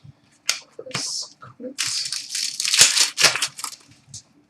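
Hockey card pack wrapper crinkling and tearing as it is ripped open, with cards rustling and a few sharp taps. The rustling is densest in the second half.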